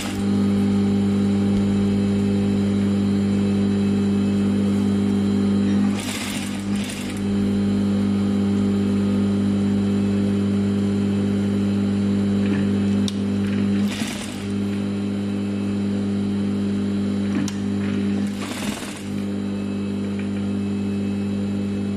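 Industrial sewing machine running with a steady, even hum. The hum breaks off briefly about six, fourteen and nineteen seconds in, each time with a short rustling burst.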